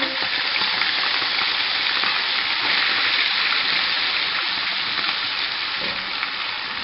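Boneless chicken pieces sizzling in hot oil in a frying pan, a steady hiss, as a silicone spatula stirs freshly added spices through them.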